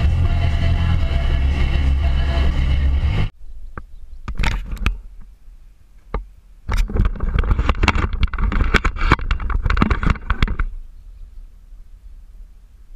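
Car driving on a paved road, a steady rumble of engine and road noise that cuts off abruptly about three seconds in. Then come scattered sharp clicks and, for about four seconds, a dense run of irregular clicking and rustling, followed by only a faint low hum.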